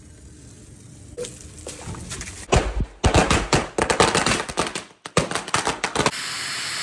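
A box of small bijli bomb firecrackers burning all at once, going off in a rapid, irregular string of sharp cracks that begins about two and a half seconds in. A steady hiss follows near the end.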